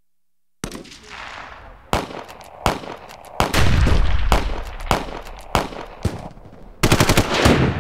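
Battlefield gunfight: scattered gunshots echoing, starting after a brief silence. About three and a half seconds in comes a heavier, longer blast with deep rumble, and near the end a rapid burst of shots.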